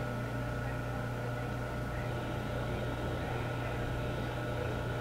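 A steady electrical hum with a thin higher whine over a soft hiss, unchanging throughout.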